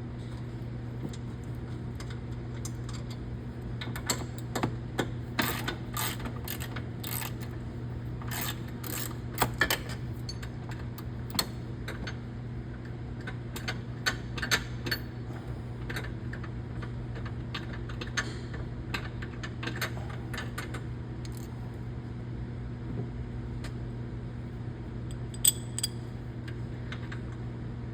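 Irregular metallic clinks and clicks of a 13 mm wrench and socket on the bolt of a Polaris Ranger Crew's dump-bed latch bracket, coming thickest from about four seconds in to about twenty and again briefly near the end, over a steady low hum.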